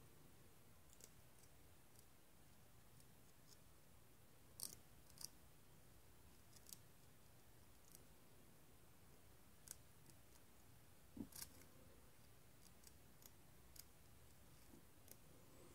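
Faint, scattered clicks and ticks of thin laser-cut steel model pieces being handled and fitted together, tabs and edges tapping against one another. The sharpest clicks come about five seconds in and again around eleven seconds.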